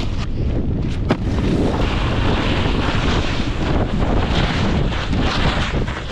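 Wind buffeting the microphone of a camera moving fast downhill on a snowboard, mixed with the board's edges scraping and hissing over groomed snow. A sharp knock about a second in.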